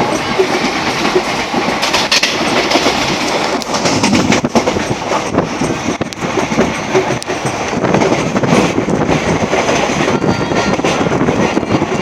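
Indian Railways passenger coach running at speed, heard at its open door: a loud, steady rumble and rattle of wheels on rail, with repeated sharp clicks from the rail joints.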